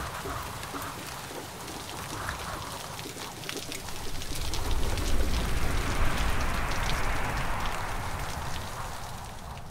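Rain falling, with many drops striking a surface. It grows louder with a deep rumble about halfway through, then eases slightly.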